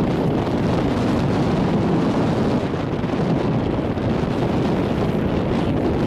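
Strong wind buffeting the microphone in a steady, loud rumbling rush, over choppy water.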